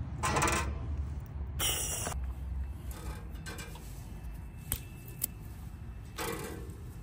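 Handling and rustling noises over a low rumble, with a short hiss early on and two sharp clicks about half a second apart near the middle.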